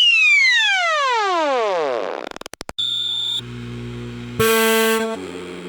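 Synthesized emergency-alarm sound effect: a buzzy tone sweeping steeply down in pitch for about two seconds, a few quick clicks, then a run of harsh horn-like blasts that jump to a new pitch every half second or so.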